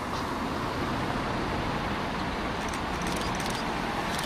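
Road traffic noise as a Mercedes-Benz Citaro single-deck bus approaches along the road, its engine and tyres growing a little louder near the end.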